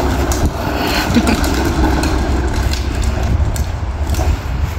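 Hard plastic wheels of a child's ride-on toy car rolling over rough, cracked asphalt: a steady rumble.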